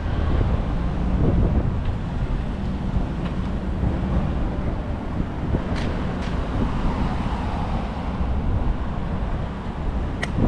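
Wind buffeting the microphone of a camera on a moving bicycle, a loud, steady low rumble. There are a few sharp clicks, two around the middle and one near the end.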